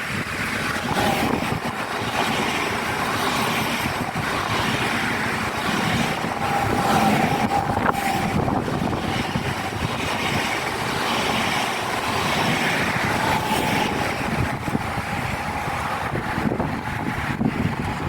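A train running past on the rails: a steady rush of wheel and air noise with a faint whine that comes and goes.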